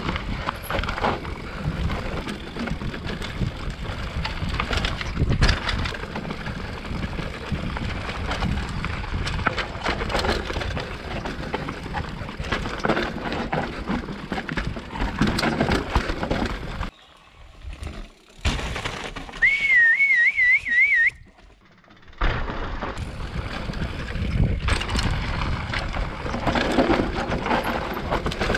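Mountain bike ridden fast down a dirt forest trail: rough, steady tyre noise and rattling knocks from the bike over the ground, with wind on the microphone. About two-thirds through, the noise briefly drops away twice, and a short warbling whistle is heard between the gaps.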